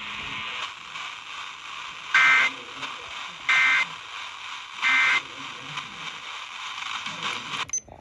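Eton Elite Traveler radio playing a NOAA Weather Radio broadcast through its speaker. Over steady static hiss come three short bursts of EAS end-of-message data tones, about a second and a half apart, marking the end of the alert. The hiss cuts off suddenly near the end.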